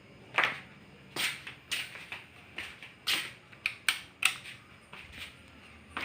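A dozen or so sharp clicks and light knocks at irregular intervals.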